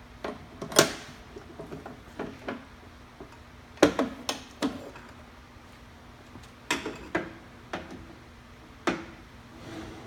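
Steel tool-holder parts being handled: a handful of sharp clinks and knocks as the holder, with its stainless steel extension and a collet fitted on as a heat sink, is picked up and set into the shrink-fit machine. The loudest knock comes about a second in, with more in small clusters after.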